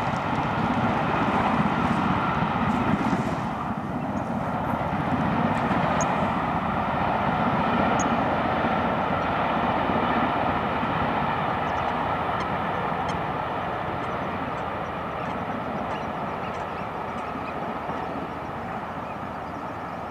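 Steam locomotive Duchess of Hamilton, an LMS Princess Coronation-class Pacific, running on the main line with its special train: a steady, loud roar that slowly fades over the second half.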